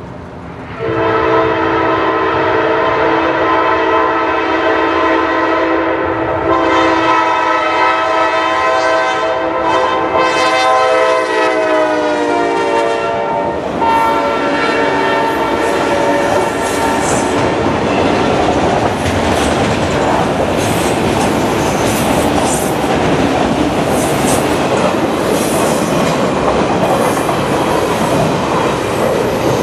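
Freight locomotive's multi-chime air horn blowing from about a second in, its chord sliding down in pitch as the locomotive passes. The horn stops at about the halfway point, and a long train of autorack cars follows, rolling by with steady wheel rumble, clacking and faint wheel squeal.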